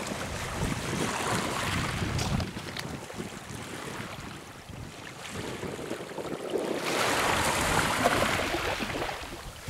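Small waves lapping and washing up a pebble beach, with wind buffeting the microphone. A louder hissing wash of water over the stones swells about seven seconds in.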